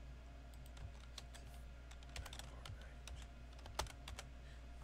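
Computer keyboard keys clicking as a short word is typed: a run of separate keystrokes with one louder click about four seconds in, over a low steady hum.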